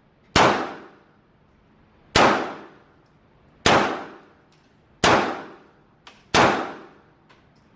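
Five pistol shots fired one at a time at a slow, even pace, about one every one and a half seconds, each a sharp crack with a short ringing tail.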